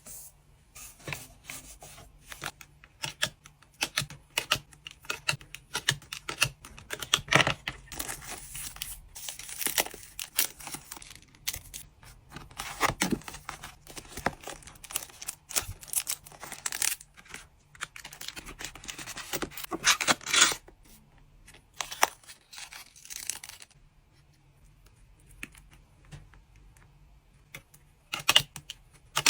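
Trading cards and their packaging being handled and packed by hand: an irregular run of small clicks, rustles and tearing-like noises. It goes quieter for several seconds near the end, then a few sharper sounds follow.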